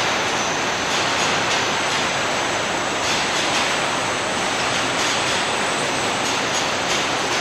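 Steady roar of machinery in a car-body paint shop, with faint clicks now and then.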